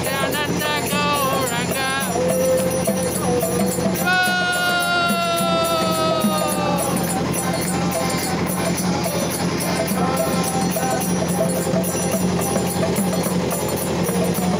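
Kirtan music: voices singing a chant, one long note held and sliding down about four seconds in, over a mridanga drum, accordion and clapping, with a fast, even jingling beat and a steady low hum underneath.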